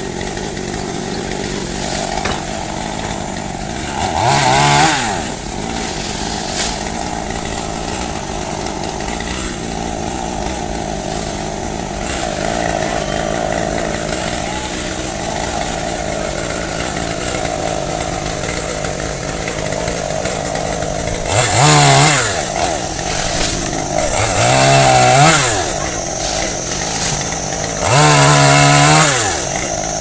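Chainsaw engine running steadily at idle, then revved up four times, once about four seconds in and three times near the end, each rev climbing in pitch and dropping back as the saw cuts through tree branches.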